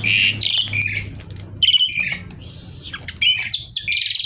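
Asian pied starling singing hard: a fast, continuous run of harsh chattering and rattling notes with clicks and short chirps, the rattling 'kretekan' chatter.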